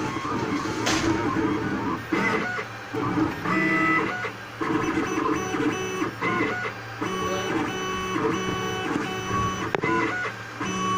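Cube Pro Trio 3D printer's stepper motors whining as the print head moves. The tones hold for a moment, then jump to new pitches with each change of move and speed, with short pauses between moves.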